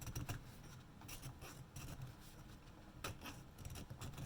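Small hand file scraping in short, faint, uneven strokes along the chipped edge of an espresso machine's boiler cap, smoothing it down.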